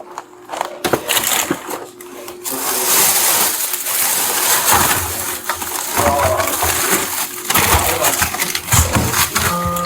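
Handling noise: rustling, crinkling and scraping with scattered knocks and clicks, as things are moved and searched through. Near the end comes a short two-part electronic beep.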